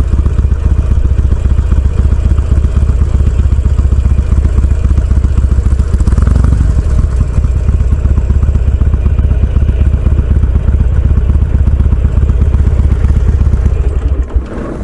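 Harley-Davidson Sportster's air-cooled V-twin engine running steadily with a deep pulsing rumble, its pitch rising briefly about six seconds in. The sound drops off abruptly just before the end.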